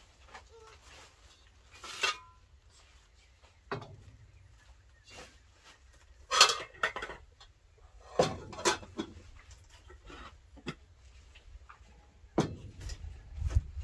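Metal cooking pots and lids clinking and knocking as they are lifted out of a woven basket and set down on a wooden floor: a handful of separate clatters, the loudest about six and a half seconds in.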